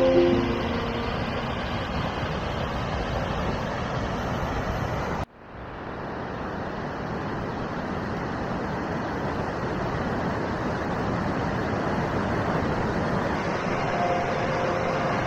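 Rushing water of a mountain stream and small waterfall, a steady roar of white water. It cuts out abruptly about five seconds in and swells back up within a second.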